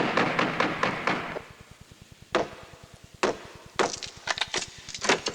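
A run of sharp wooden knocks and blows, like chopping or hammering on wood: a rapid flurry in the first second or so, then single blows and short quick clusters.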